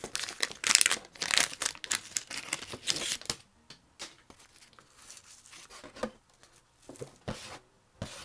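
Old-style wax-paper baseball card pack being torn open and crinkled for about three seconds, then quieter scattered rustles and clicks as the cards are handled.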